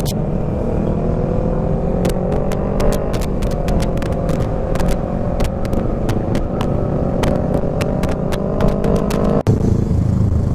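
Yamaha XMAX 250 scooter's single-cylinder engine running under way amid wind and road rumble, its note rising slowly as the scooter gathers speed, with frequent sharp ticks. The sound drops out for an instant near the end, then the rumble carries on.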